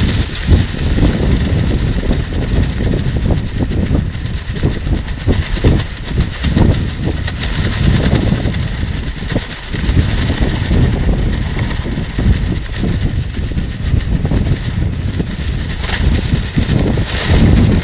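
Strong wind buffeting the microphone in gusts, with the plastic rainsuit flapping and crinkling in the wind.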